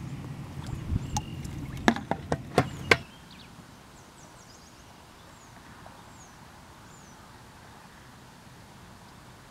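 Handling noise, a rumble with a run of five sharp clicks between about two and three seconds in, as the fishing rod and gear are picked up and the line goes out. After that, quiet outdoor background with a few faint bird chirps.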